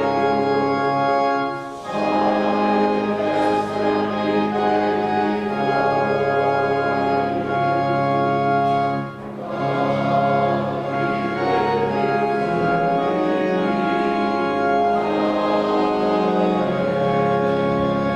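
Church organ playing sustained chords. The music breaks briefly between phrases about two seconds in and again about nine seconds in.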